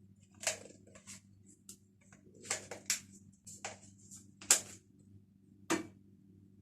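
A series of sharp, irregular clicks and knocks, about eight in all, the loudest about four and a half seconds in, over a faint steady low hum.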